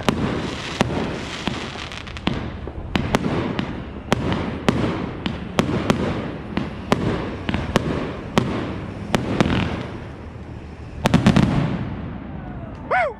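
Fireworks from a large multi-shot box going off in quick succession: sharp bangs about one to two a second over a lingering crackle, with a rapid cluster of louder bangs near the end.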